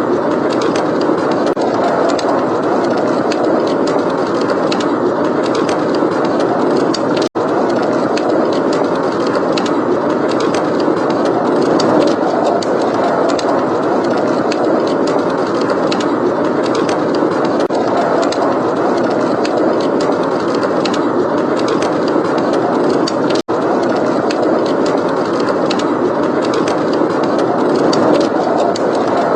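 Blizzard wind blowing steadily, with the small crackling pops of a wood fire scattered over it. The sound cuts out for an instant twice.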